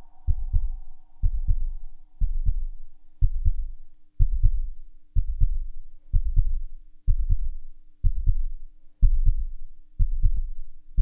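A synthesised, heartbeat-like bass pulse: a deep double thump about once a second over a steady low hum tone.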